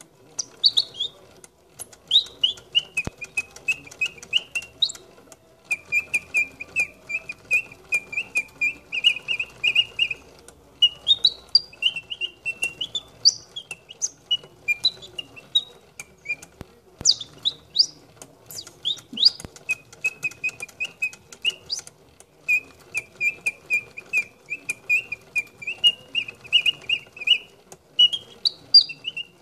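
Wind-up three-bird singing cage, its clockwork whistle chirping in a repeating pattern: runs of rapid trills at one pitch broken by quick rising and falling sweeps. Light clicks from the mechanism run underneath.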